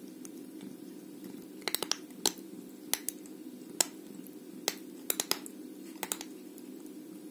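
A cat biting and chewing a stick of dry, uncooked pasta: a series of sharp, irregular crunches and cracks. They begin nearly two seconds in and stop about a second before the end.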